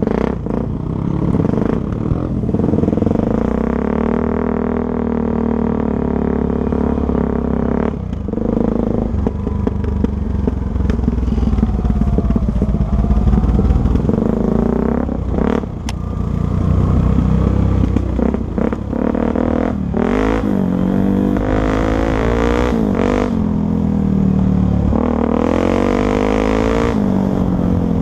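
Honda XR250 Tornado's single-cylinder four-stroke engine running as the motorcycle is ridden, the revs rising and falling repeatedly through the gears.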